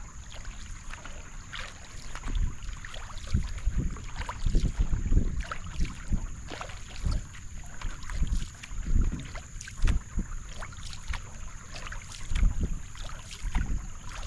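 Canoe paddle strokes in calm creek water, the blade repeatedly dipping, pulling and lifting out with splashing and dripping, while wind buffets the microphone in low gusts.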